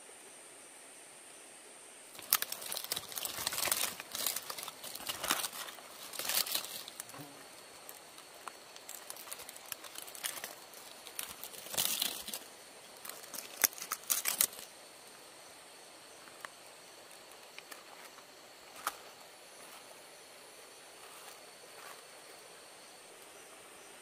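Dry, charred leaf wrapping crinkling and rustling as it is peeled open by hand, in irregular bursts for about twelve seconds, then only an odd crackle. A steady high insect drone runs underneath.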